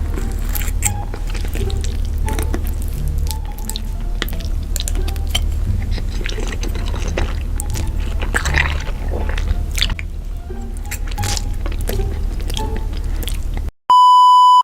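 Close-up wet chewing and mouth sounds of someone eating noodles, many small clicks and smacks over a steady low bass. Near the end the sound cuts out and a loud steady beep tone starts.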